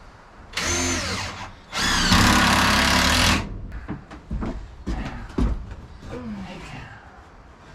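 Cordless drill run in two bursts, about a second and then about a second and a half, its motor pitch sweeping as the trigger is squeezed, working a screw or pilot hole into a 2x4 brace. Light knocks and handling clicks of wood and tools follow.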